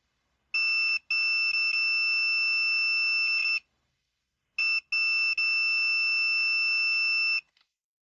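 Craftsman digital multimeter's continuity beeper giving a steady high beep twice, each about three seconds long and each breaking off briefly near its start. The beep shows continuity between the oil pressure switch's terminal and its threaded body: the switch's normally closed contact to ground is good.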